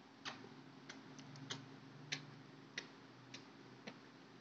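Faint, irregular ticks of a colour pencil tip tapping and stroking on paper while colouring in, over a faint steady low hum.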